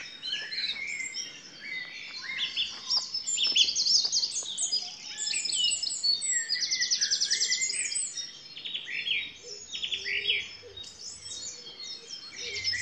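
Dawn chorus of several songbirds singing at once, with a wren's song and a song thrush among them. A very rapid, even trill runs for about a second and a half a little past the middle.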